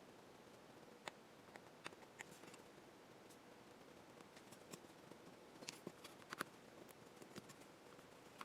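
Faint, scattered clicks and light scrapes of a razor blade trimming the edge of a plastic polarizer film, with a cluster of sharper clicks a little past halfway.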